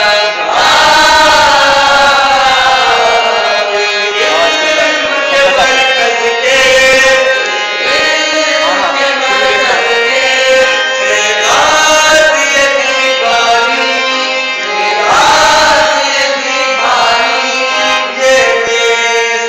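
A school anthem: a voice singing a melody over instrumental accompaniment, with held notes and gliding pitch.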